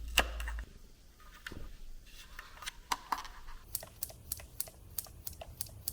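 Irregular light clicks and taps of small plastic trim parts being handled and worked on, sparse at first and coming faster in the second half.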